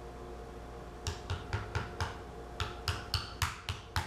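Small hammer tapping a wooden trim piece into place on a newel post: a run of about a dozen quick, light taps that starts about a second in, a few taps a second with short pauses.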